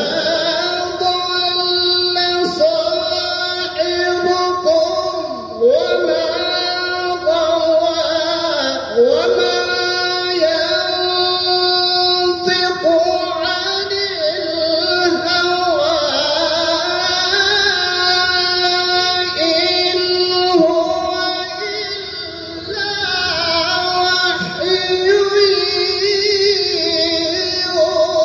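A man's solo melodic Quran recitation (tilawah) in Arabic, amplified through a handheld microphone. He holds long notes and ornaments them with sliding, melismatic turns, pausing briefly for breath between phrases.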